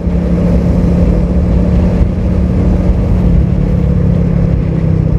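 Motorcycle engine running steadily at cruising speed, heard from the rider's seat with road and wind noise; the engine note dips a little about three seconds in.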